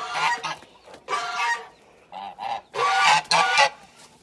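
Domestic geese honking: several calls in quick succession.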